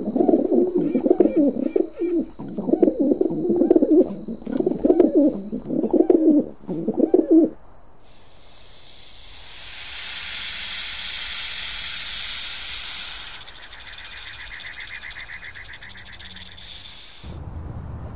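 A pigeon cooing, a run of repeated low, warbling coos for about seven seconds. Then a long hiss begins, loudest around the middle, and cuts off near the end as a low rumble starts.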